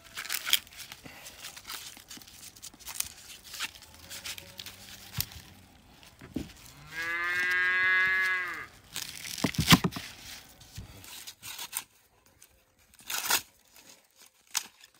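Green corn husks being torn and stripped from the ears by hand, a run of crackling, tearing rips. About seven seconds in, a cow moos once for about two seconds, louder than the husking.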